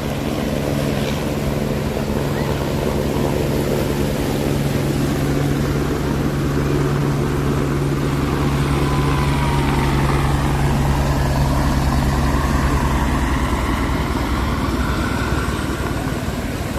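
A motor engine droning at a steady pitch, which drops away a few seconds before the end, over a constant rush of background noise.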